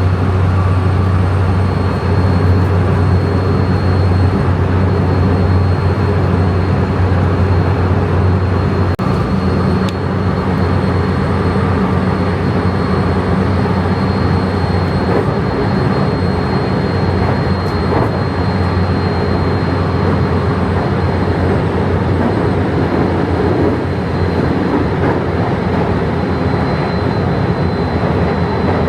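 Running noise inside a moving train carriage: a steady rumble of wheels on track, with a deep hum that fades about nine seconds in and a thin high whine above it.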